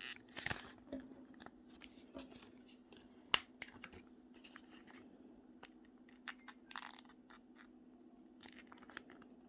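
Quiet handling of folded origami paper: scattered soft clicks, taps and a short rustle, the loudest a sharp tap about three seconds in, over a steady low hum.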